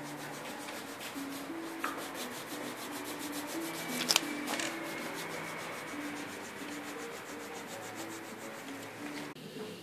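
A foot file rasping back and forth over the sole of a foot in quick, even strokes, sanding off softened callus skin, with a brief tap about four seconds in.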